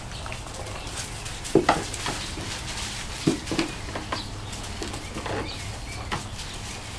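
A litter of 11-week-old Pointer puppies tussling over a tug toy, with short puppy growls and yips several times.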